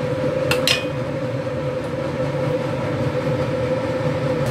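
Steady machine-like hum with one constant mid-pitched tone over a low rumble, and two quick clicks about half a second in.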